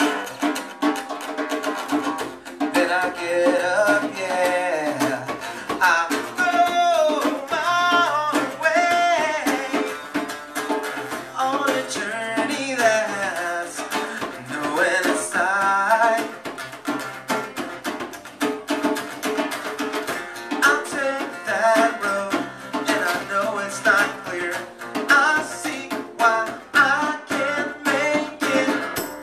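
Live acoustic band: a man singing over a strummed acoustic guitar, with drums played by hand keeping a steady beat.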